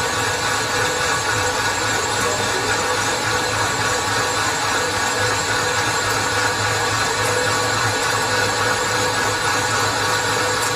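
Metal-turning lathe running steadily, a loud, even mechanical whine and hum.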